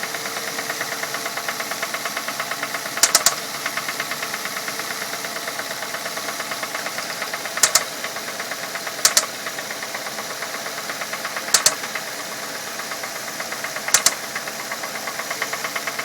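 2006 Ford Fusion's four-cylinder engine running with a fast, steady ticking, and every few seconds a sharp, louder knock, five in all, the first of them doubled. The owner wonders whether it is a valve problem or the timing belt slapping.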